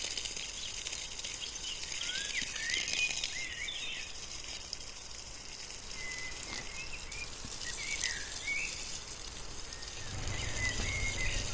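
Small birds chirping and singing in short quick notes that slide up and down, over a steady high hiss. A low rumble comes in near the end.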